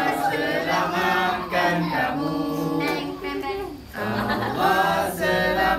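A group of family voices singing the birthday song together, unaccompanied, to the birthday girl in front of her lit-candle cake.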